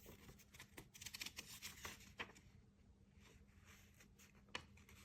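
Near silence: room tone with a few faint, scattered rustles and clicks of handling.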